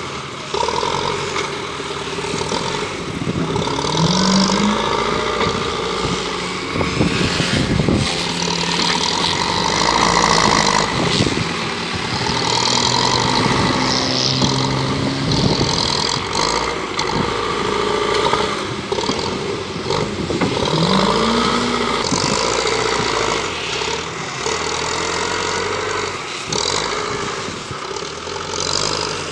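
Belarus 510 tractor's diesel engine running steadily while working its front-end loader, the revs rising twice: about four seconds in and again past the middle.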